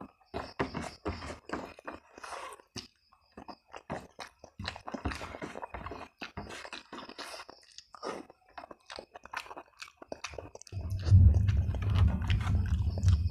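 Close-miked chewing and biting, many short crunches and clicks in quick succession. Near the end a loud, steady low rumble comes in and becomes the loudest sound.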